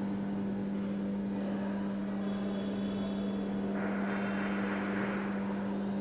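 A steady machine hum with a strong low tone holds through. From about four seconds in, a ballpoint pen scratches on paper for a second and a half as lines are drawn.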